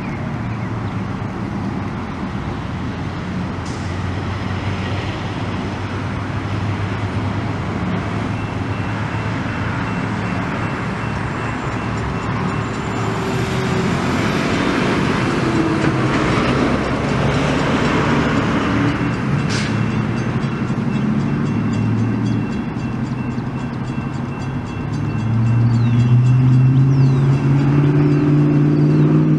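A train passing with a steady rumble of rolling wheels and a diesel engine running. Near the end a louder engine sound comes in, its pitch slowly rising.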